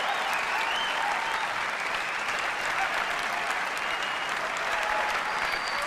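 Large audience applauding, with cheering, in a steady wave of clapping.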